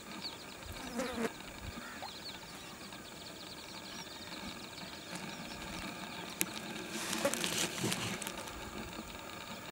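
Wetland ambience full of many short, high chirps and peeps in overlapping succession. There is a brief louder burst about a second in and a louder, noisier stretch about seven to eight seconds in.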